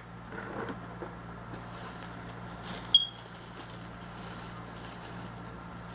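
Steady low hum with faint rustling from handling plastic miniature packaging, and one sharp short click about three seconds in.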